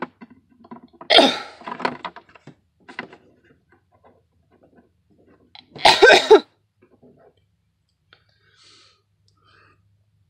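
A person coughing: one cough about a second in, then a short run of coughs around six seconds in, with faint clicks and rustles between.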